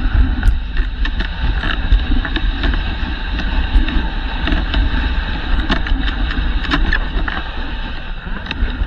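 A dog sled running over a packed snow trail behind its dog team: steady sliding noise with a heavy low rumble, broken by many short sharp clicks and knocks.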